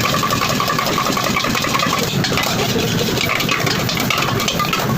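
A steady, loud, engine-like roar with many quick clicks and clatter over it.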